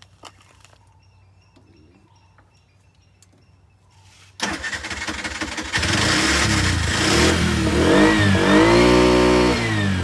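Tuk-tuk engine starting suddenly about four seconds in and then revved up and down. It had stalled on dirty petrol blocking the fuel line, and runs again once contaminated fuel has been drained from the fuel pump.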